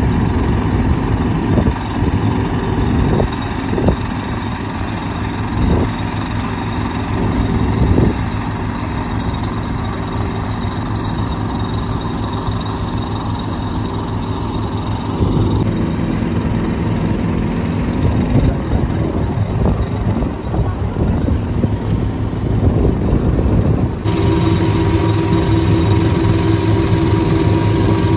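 Engine of a wooden passenger boat running steadily under way, a continuous low drone with a few sharp knocks in the first several seconds. Its tone changes abruptly twice, about halfway through and again near the end.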